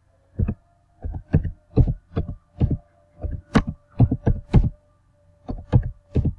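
Computer keyboard being typed, about fifteen dull single keystrokes at an uneven pace, with a faint steady hum underneath.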